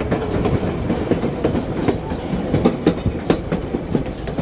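Moving passenger train heard from out in the open on the car: a steady rumble with irregular sharp clicks and clatter of the wheels on the rails.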